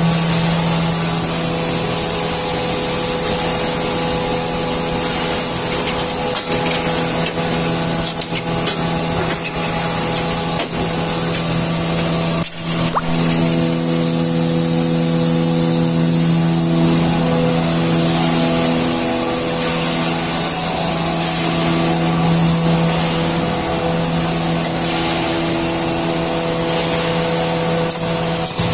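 Automatic facial tissue production line machinery running: a steady mechanical hum of several held tones over a high hiss. Some of the tones cut in and out every few seconds as the machine cycles, and there is one sharp click about twelve seconds in.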